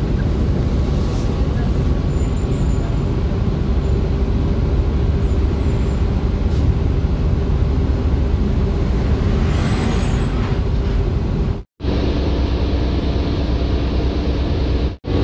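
City bus in motion, heard from inside the cabin: a steady rumble of engine and road noise. The sound cuts out abruptly twice near the end.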